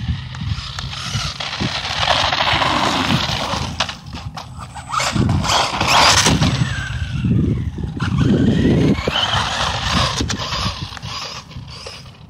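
Electric RC monster truck with a 2700 kV brushless motor being driven hard on asphalt. The motor whine and tyre noise swell and fade with the throttle, with a rising whine near the end.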